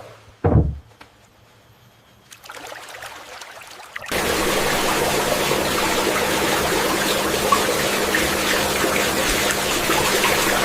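A low thump about half a second in, then from about four seconds a steady rush of running water.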